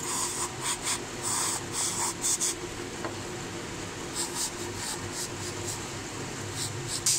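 Short scraping and rubbing sounds as a gloved hand handles the metal body and parts of a Newlong sewing machine during servicing, in several quick clusters, over a steady low hum.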